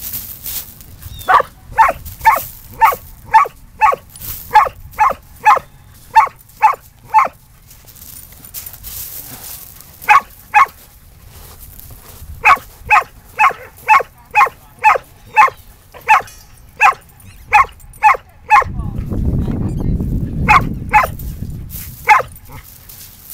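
A Keeshond barking at a feather on the ground: short, sharp barks in quick runs of about two a second, broken by pauses of a few seconds. A low rumbling noise comes in about three-quarters of the way through, under the last few barks.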